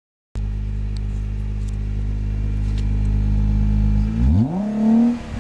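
2008 Nissan GT-R's twin-turbo 3.8-litre V6 idling steadily at the stock quad exhaust tips after a brief silent gap, then one quick rev about four seconds in that climbs and drops back to idle near the end.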